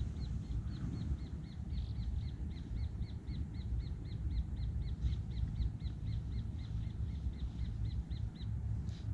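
A bird calling in a long, even series of short, high notes, about four a second, which stop near the end, over a steady low rumble.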